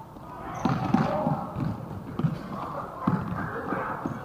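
A football thudding as it is kicked and bounced in play, about six dull knocks spread unevenly across a few seconds, over the raised voices of players and onlookers.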